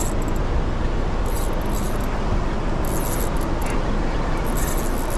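Steady wind rush on the microphone, with short high-pitched whirring bursts from the spinning reel about every second and a half as a hooked fish is pumped and wound in.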